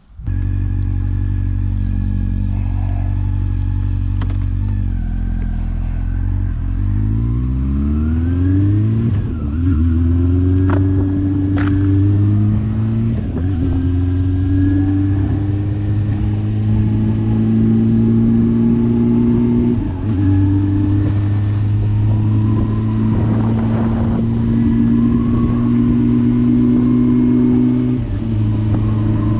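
Motorcycle engine starting suddenly, idling steadily for about six seconds, then revving up as the bike pulls away. It then settles into steady running, with the engine note briefly dipping several times.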